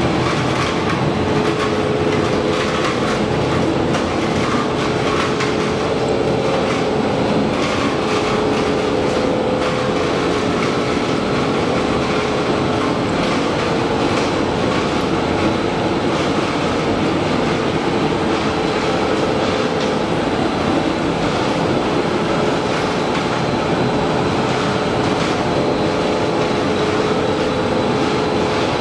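Nonwoven needle-punching production line machinery running: a loud, steady mechanical noise made of a fast, even clatter over a steady mid-pitched hum.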